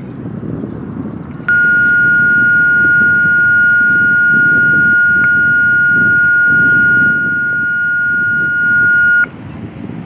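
Steady high-pitched radio attention tone, about eight seconds long, starting and stopping abruptly: the alert tone sent ahead of a county dispatch broadcast, heard through a scanner. Wind rumbles on the microphone throughout.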